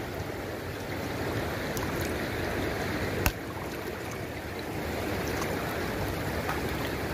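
Lake water sloshing and lapping around a person wading waist-deep while handling a cast net in the water, with one sharp click about three seconds in.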